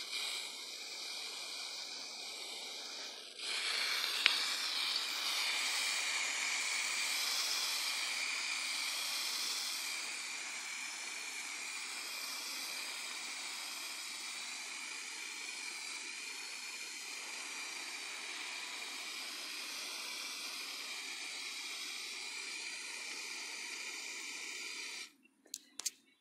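Aerosol spray paint can hissing steadily as paint is sprayed in one long pass. The hiss gets louder about three seconds in and cuts off suddenly near the end, followed by two short clicks.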